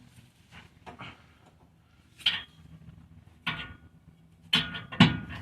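About four sharp metallic knocks in the second half, each with a brief ring, after a few faint clicks: blows struck on the exhaust muffler and pipe to seat them.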